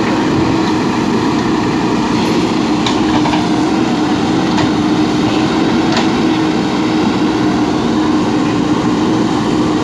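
JCB backhoe loader's diesel engine running steadily with an even hum, with a few faint sharp clicks about three and six seconds in.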